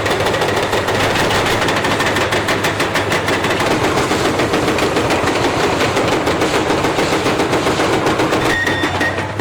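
Heavy diesel construction machine running with a rapid, even clatter of about five or six knocks a second over a steady low engine note.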